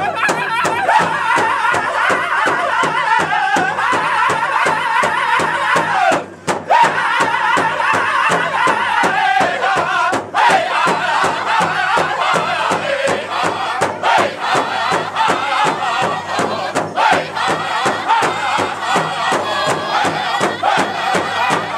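Powwow drum group: several men singing together in loud, high voices while beating a large shared drum with drumsticks in a steady, even beat.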